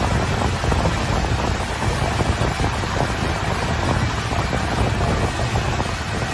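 Steady rush of wind buffeting the microphone on a moving speedboat, with the boat's motor and water noise underneath.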